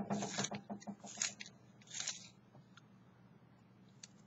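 A wooden pencil being turned in a pencil sharpener: three short, crunchy scrapes about a second apart, in the first two seconds.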